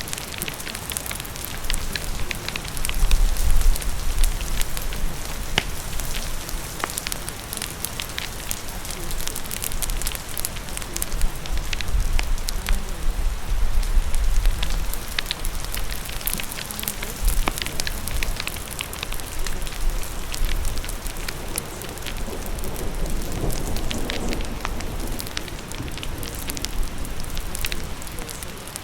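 Crackling fire over steady rain: a continuous rain hiss with many sharp pops and crackles scattered throughout, and a low rumble that swells twice.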